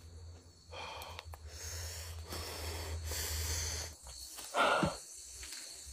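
A man breathing heavily and close to the phone microphone, in soft drawn-out breaths, with a louder voiced exhale that falls in pitch near the end.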